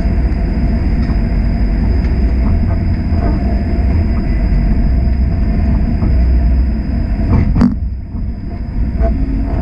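Streetcar running along its rails, heard from inside the car: a steady low rumble of wheels and running gear with a thin steady high whine, and one sharp clack about three quarters through.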